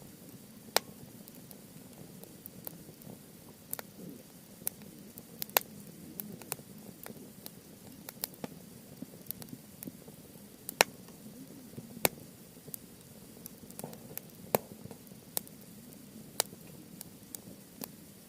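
Wood campfire crackling: irregular sharp pops and snaps, some loud, over a steady low rustle of burning.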